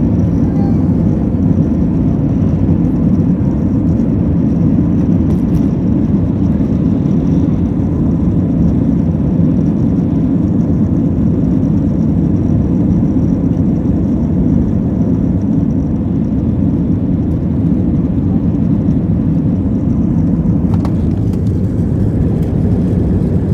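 Steady low rumble of engine and airflow noise inside the cabin of an Airbus A320 in flight.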